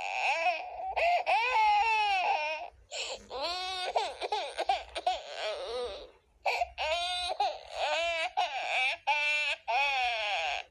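Baby crying in long, high-pitched, wavering wails broken by brief catches of breath, turning into shorter choppy bursts in the last few seconds.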